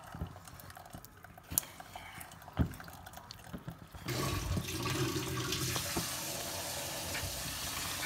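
Wooden spoon pressing and scraping tomato pulp through a metal sieve, with a few sharp knocks against the mesh. About four seconds in, a steady hiss starts and carries on.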